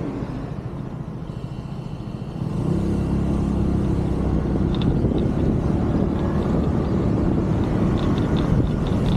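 Motor scooter riding along, its engine and road noise mixed with wind on the microphone, growing louder about two and a half seconds in as it speeds up.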